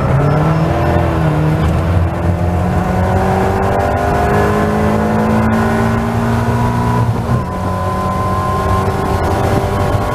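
Caterham Seven race car's four-cylinder engine at full throttle, heard from the cockpit: the engine note climbs steadily as it accelerates out of a corner, drops sharply with an upshift a little past seven seconds in, then climbs again, with wind noise.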